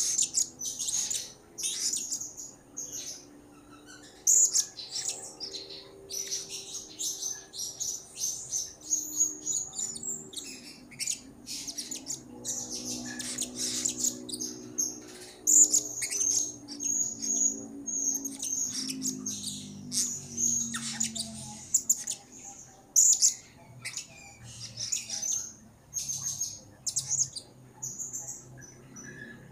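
Blue-crowned hanging parrot (serindit) calling in rapid, high-pitched chirps and thin squeaky notes, repeated in quick bursts with short pauses between.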